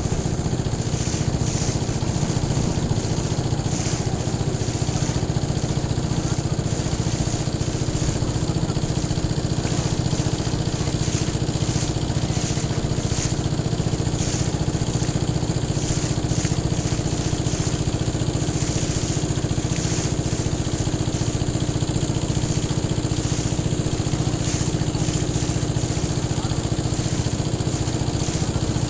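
A wooden boat's engine running steadily with an even low drone that does not change in pitch or level, with some hiss of wind and water over it.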